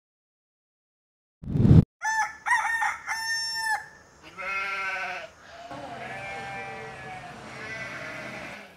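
After a short low blast, a rooster crows, followed by long, drawn-out bleating calls from a goat.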